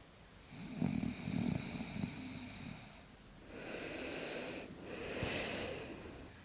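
A sleeping person snoring: a low, rattling snore lasting about two and a half seconds, then a long breathy rush of air.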